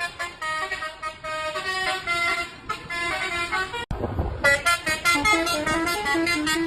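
Bus telolet horn, a multi-tone air horn, playing a quick melody of short stepped notes. Just before the middle it cuts out for an instant and a short low rumble follows, then the horn notes resume louder.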